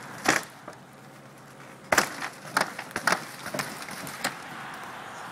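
Asphalt shingles and roof boards crunching and cracking under footsteps on a caved-in roof: one sharp crack near the start, then a run of sharp cracks from about two seconds in, the loudest first.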